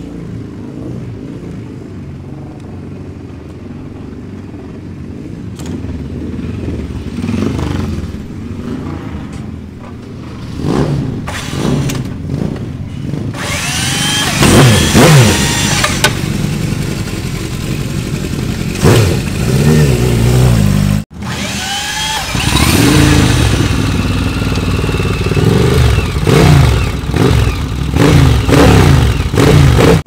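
Air-cooled inline-four engine of a classic racing superbike with an open 4-into-1 exhaust, running steadily and then revved in repeated sharp throttle blips, its pitch rising and falling quickly with each one.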